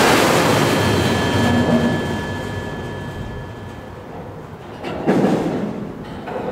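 Empty flatcars of a slow-moving CN freight train rumbling and clanking over the rails, with a thin steady whine fading out over the first three seconds and another short surge of metal noise about five seconds in.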